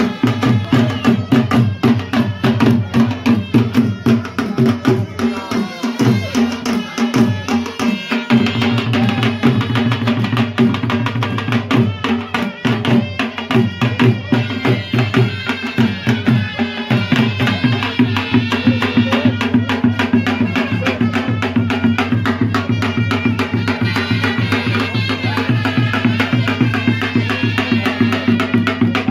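Two double-headed barrel drums (dhols) beaten together in a fast, steady rhythm. From about halfway through, a high, wavering pitched sound rides over the drumming.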